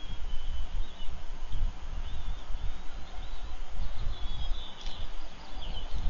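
Wind rumbling on an outdoor microphone, rising and falling, with a few faint, thin, high bird chirps.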